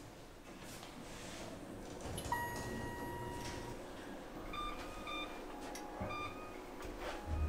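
Electronic beeps from a wall button panel pressed by hand in a small indoor space: one steady beep lasting over a second about two seconds in, then a few short beeps in quick groups, with a couple of clicks and a low hum underneath.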